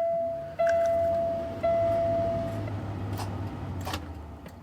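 Peterbilt semi truck's dashboard warning buzzer sounding a steady tone as the key is turned, restarting twice and then stopping. Under it a low hum fades away, and there are a couple of clicks near the end: the truck fails to start, its batteries too flat.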